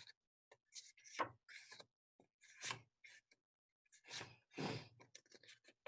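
Near silence, with a few brief, faint rustles or breaths.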